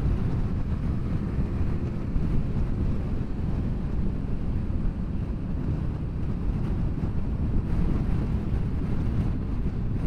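Steady wind rush on the microphone over a motorcycle's engine and road noise while riding at motorway speed.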